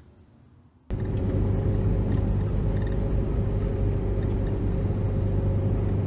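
After about a second of near silence, steady engine and road noise from inside the cabin of a 2004 Chevy Cavalier under way, its 2.2 L Ecotec four-cylinder running with a steady low hum. The engine has a random multiple-cylinder misfire fault (P0300, system too lean).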